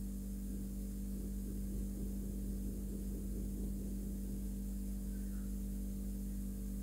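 Steady low electrical hum with a faint hiss, unchanging throughout; the crochet work itself makes no audible sound.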